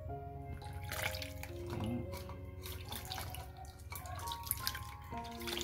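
Bath water running and splashing in irregular bursts as a baby monkey is washed, over background music of long held notes.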